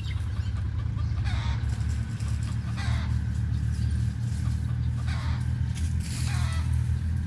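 Farm tractor with a front loader, its engine running with a steady low drone as it works the yard. A chicken clucks four times over it, in short calls that sweep in pitch.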